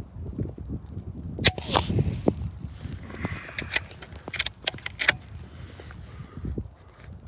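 Sharp clicks and knocks from a .25 calibre Hatsan FlashPup PCP air rifle being handled and cycled between shots, the loudest pair about a second and a half in, with a low rumble underneath.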